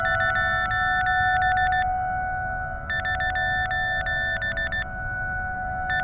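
Small FPV quadcopter's electric motors running with a steady whine, under a rapid high electronic chirping that comes in groups of about two seconds, repeating about every three seconds.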